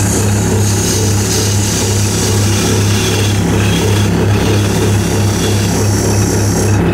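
Wood lathe running with a steady motor hum while a narrow chisel cuts into the spinning wood: a high hissing scrape that stops near the end.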